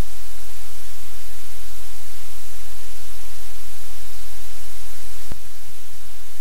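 Loud, steady static hiss with a low electrical hum under it, the noise floor of a live camera's audio feed. A single sharp click comes about five seconds in, and the hiss drops slightly after it.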